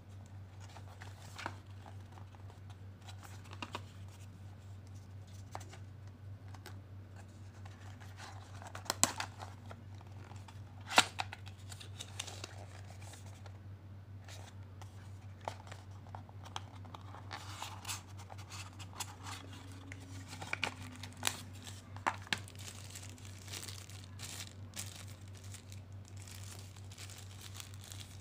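Packaging being handled by hand: scattered clicks and knocks of stiff cardboard box inserts and the dash cam, with stretches of plastic wrapping crinkling. The sharpest knock comes about a third of the way in, over a steady low hum.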